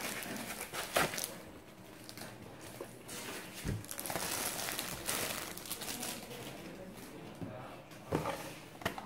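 A thin clear plastic bag crinkling and rustling, with foam packing pieces rubbing, as an external DVD drive is unpacked by hand. The crackles come in irregular bursts, the sharpest about a second in and again near the end.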